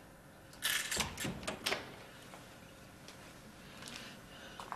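A glazed interior door being opened: a quick run of clicks and rattles from the latch and the door frame's glass panes, from about half a second to just under two seconds in, followed by a few faint ticks.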